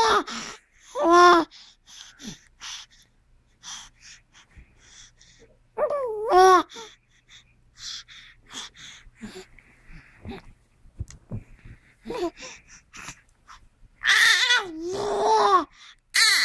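Baby babbling in high, wavering vocal sounds: short ones about a second in and around six seconds in, and a longer run near the end, with soft breaths and mouth sounds between.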